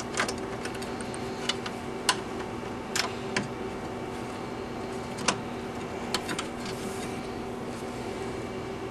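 Scattered light clicks and knocks from a replacement ticket printer and its ribbon cable connector being handled and fitted into a Bally S9000 slot machine, over a steady hum.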